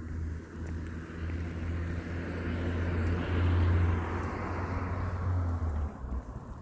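A car passing by on the road: its tyre and engine noise swells to a peak about halfway through and then fades away.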